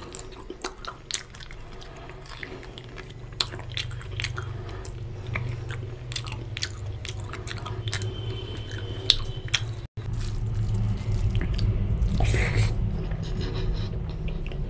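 Close-miked chewing of a handful of pulao rice, with many sharp lip-smacking clicks over a low rumble. There is a brief dropout about ten seconds in, and a short louder rush of noise near the end.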